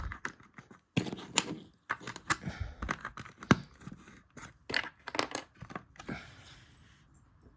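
Plastic LEGO pieces clicking and clattering as they are rummaged through and pressed onto a build, with rustling between the clicks, tailing off near the end.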